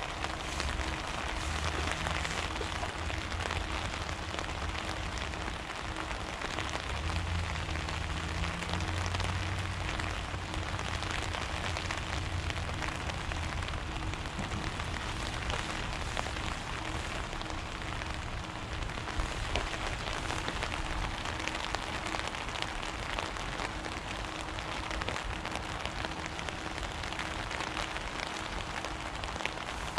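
Steady patter of falling water on a surface, like rain, with a low hum underneath that fades out about halfway through.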